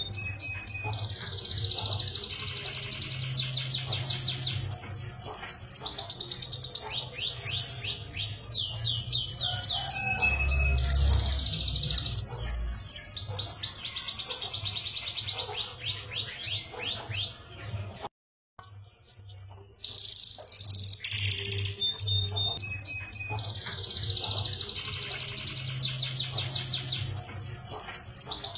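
Canary singing a long, fast song of rolling trills and rapid repeated chirps. It breaks off for a moment about two-thirds of the way through, then carries on.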